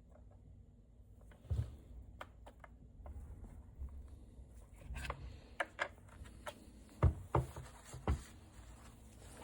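Scattered light clicks and knocks, about ten in all, the loudest a few from about seven seconds in: parts of a hot lather machine being handled and set in place during reassembly.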